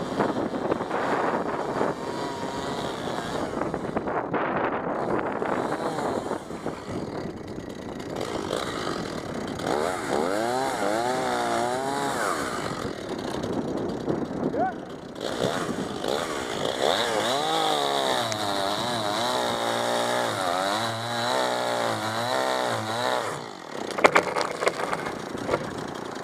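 Two-stroke chainsaw running in a tree, its pitch rising and falling again and again as it revs and labours through the cut, with a few sharp knocks near the end.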